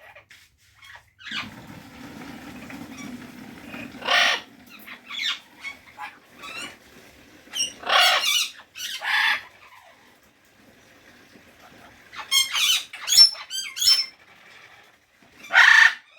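Parrot screeching in short, harsh calls: one about four seconds in, two around eight to nine seconds, a quick run of chirps between about twelve and fourteen seconds, and a loud screech near the end. A low hum sits beneath for a couple of seconds after the start.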